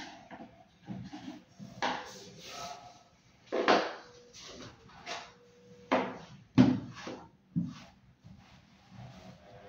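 Irregular knocks, clunks and scraping, like hard objects being handled and set down, with a few louder clunks about two, four and six seconds in.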